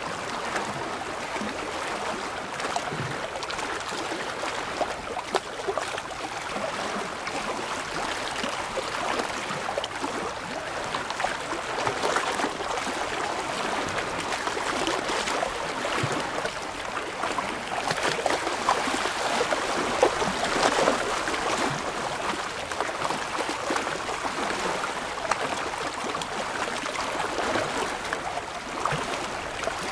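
Small waves lapping and sloshing among shoreline rocks: a steady wash of water with many little splashes, a little louder about two-thirds of the way through.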